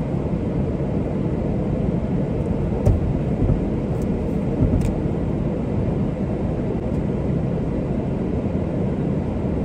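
Steady hum inside a parked car with the engine idling and the air conditioning blowing, with a few faint clicks partway through.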